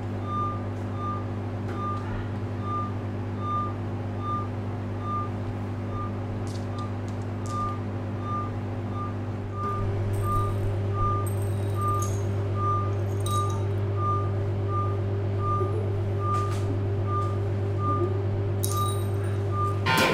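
Electronic drone: a steady low hum with a short, high electronic beep repeating about twice a second. About ten seconds in, the drone shifts and grows a little louder while the beeping carries on.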